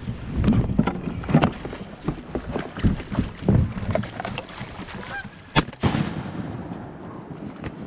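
Canada geese honking repeatedly, then a single shotgun blast about five and a half seconds in.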